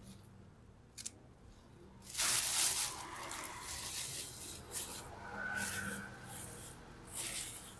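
A thin plastic bag crinkling and rustling as hands rummage through the crushed cassava leaves inside it. It starts about two seconds in and comes in uneven waves, after a short click near the first second.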